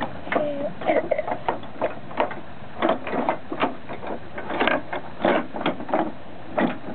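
Wooden toys clacking against each other and against the wagon's wooden slats as they are handled and stacked: an irregular run of sharp clicks and knocks.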